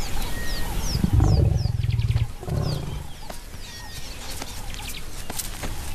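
Lion growling low twice: a longer growl about a second in, then a shorter one right after. Small birds chirp in the background.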